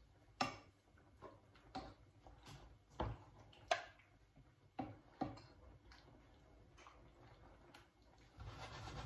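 Wooden spatula stirring food in a frying pan, knocking against the pan in about a dozen irregular sharp taps, with a short scrape near the end.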